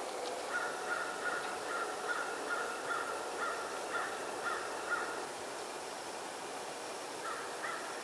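A bird calling in a rapid series of short, evenly spaced notes, about two to three a second; the series breaks off after about five seconds and starts again near the end.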